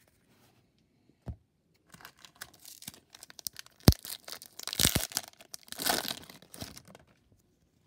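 Foil wrapper of a baseball card pack being torn open and crinkled. It rustles from about two seconds in, with a sharp crack near four seconds and louder tearing near five and six seconds, then stops.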